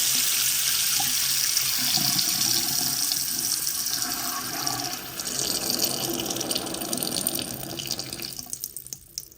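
Water running from an opened faucet after the house supply has been shut off, bleeding off the pressure left in the pipes. The flow hisses steadily, drops about halfway through, then weakens and dies out near the end as the pressure runs out.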